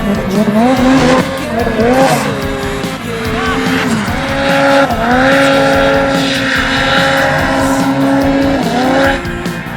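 Snowmobile engine revving hard, its pitch dropping and climbing with the throttle several times, then held high and steady for a few seconds before dipping again near the end.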